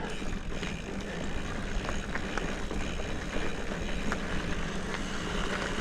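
Hardtail mountain bike being ridden on a dirt trail: a steady rumble of tyres on the ground with small rattling clicks from the bike.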